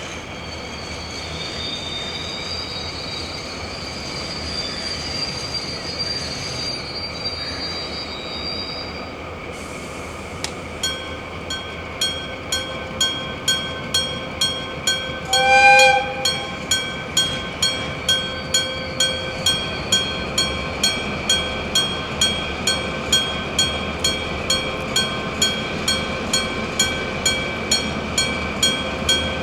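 An electric-bell railway level-crossing alarm starts ringing about ten seconds in, striking steadily about twice a second. Before it there is a steady background hum with a thin, wavering high squeal. A little past halfway, a diesel locomotive's horn gives one short blast over the bell.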